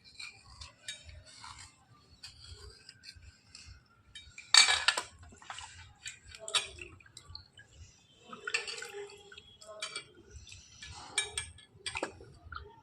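Hard slate pencil sticks being scraped and clinked against each other while being cleaned: irregular scratchy rasps and small clinks, the loudest scrape about four and a half seconds in.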